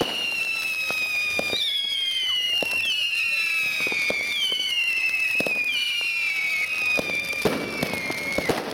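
Ground fireworks launching glittering shots, each with a falling whistle; the whistles overlap and start afresh every second or two over scattered sharp pops. The whistling stops about eight and a half seconds in, giving way to crackling.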